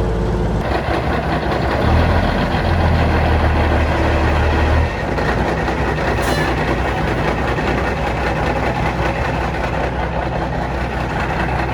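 Cummins 855 Big Cam inline-six diesel of a 1973 Kenworth W900A semi running with a steady heavy drone. About two seconds in, a deeper low drone comes up for about three seconds, then the running settles back.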